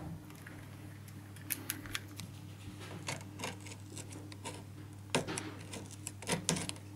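Metal scraper blade scraping the remains of a stuck-on felt pad and its adhesive off the end grain of a wooden chair leg: irregular short scrapes and clicks, the loudest a little past five seconds and just after six. A steady low hum runs underneath.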